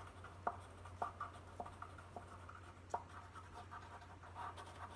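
Colored pencil scratching and tapping on paper in short, irregular strokes, a few light ticks a second, as small leaves are drawn.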